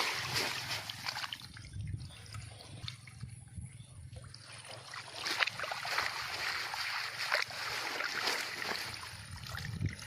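Water splashing, sloshing and dripping as a wet fishing net is shaken out, with an irregular patter of small splashes and drips.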